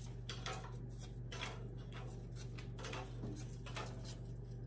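Light, irregular clicks and taps as Club crackers are set down one by one on a wire baking rack over a foil-lined sheet pan, over a steady low hum.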